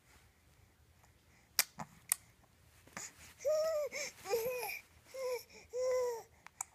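Infant about four months old cooing and babbling: a run of about five short, high, arching vocal sounds in the second half, after two sharp clicks.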